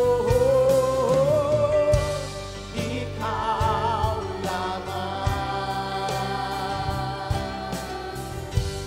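Live worship band music: a singer holds a long note with vibrato over keyboard, drums and bass guitar, then the band plays on, with a voice sustaining another wavering note about three seconds in.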